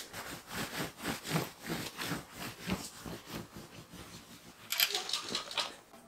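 Hands brushing and patting quilted cotton fabric, a run of soft rustles and pats, louder and brighter about five seconds in.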